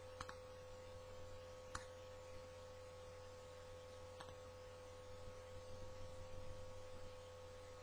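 Three faint, sharp clicks spread over several seconds as a knife works at the seal of a tin of Grizzly Straight dip, over a steady electrical hum.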